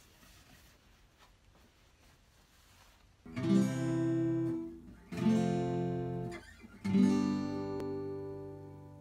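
Guitar music: three strummed chords, each left to ring out, entering about three seconds in after a faint, quiet start.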